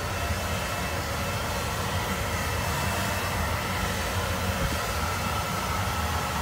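Hand-held hair dryer running steadily, an even rush of air with a faint constant whine.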